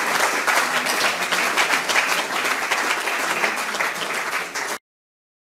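Audience applauding: many people clapping together, cutting off abruptly near the end.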